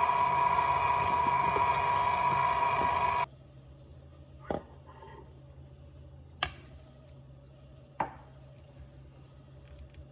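A small electric motor runs with a steady hum and cuts off abruptly about three seconds in. Three sharp clinks follow, a couple of seconds apart.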